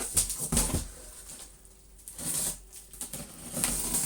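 Packaging rustling and crinkling as parts are pulled out of a box, in several bursts with a few sharp knocks.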